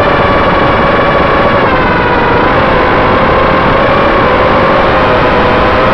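EMAX RS2205 brushless motors of an FPV quadcopter whining in flight, heard from the onboard camera with a rush of wind noise; the pitch sinks slowly as the throttle eases.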